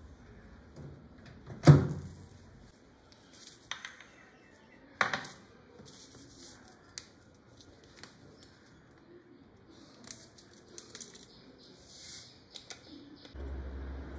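Scattered clinks and knocks of small household objects being handled, the loudest a sharp knock about two seconds in. A low hum comes in near the end.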